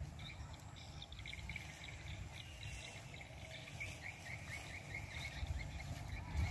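Rural outdoor ambience: a run of quick, high chirps from small wildlife, several a second, over a steady low rumble.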